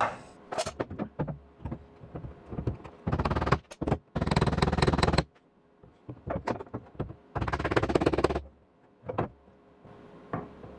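Hammer and dolly striking a tack weld in car-body sheet metal: scattered single taps, then runs of rapid blows about three to five seconds in and again near eight seconds. The hammering stretches out weld shrinkage that has pulled the panel gap tight.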